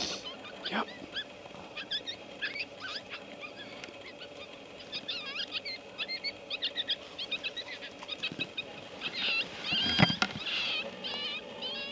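Coyotes yipping and howling in short, wavering high calls that come thicker in the second half. Sharp cracks at the very start and about ten seconds in are typical of a suppressed .223 rifle being fired.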